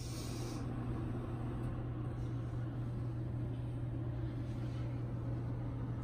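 Steady low hum over an even background hiss, unchanging throughout: room tone with no distinct events.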